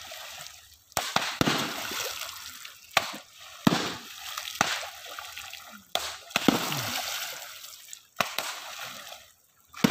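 Long wooden poles slapping down hard on shallow pond water, struck repeatedly at irregular intervals, each strike a sharp smack followed by splashing. This is traditional fish-driving: the water is beaten to chase the fish forward into a net.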